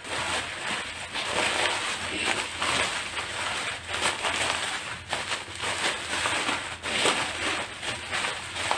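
Plastic bubble wrap crinkling and rustling as hands handle and unwrap it, with a few sharp crackles.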